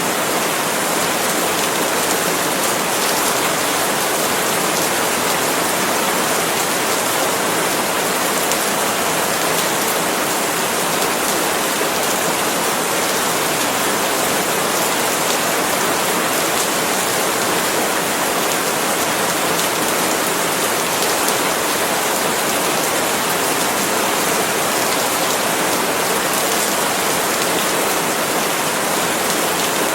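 Steady rain falling on palm leaves, a dense, even patter with no distinct single drops standing out.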